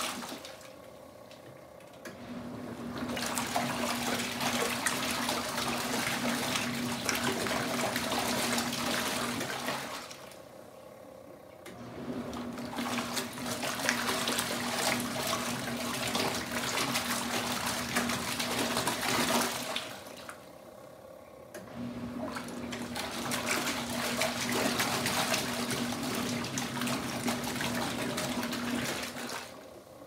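Kuppet twin-tub portable washing machine's wash tub agitating towels in soapy water: motor hum under churning, sloshing water. The wash runs for about seven to eight seconds at a time, with a quieter two-second pause between runs, three runs in all.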